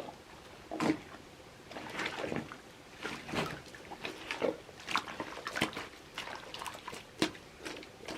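Wet mud squelching and slapping as it is worked for foley: irregular sucking squishes and sharp wet smacks, several a second, with brief gaps between.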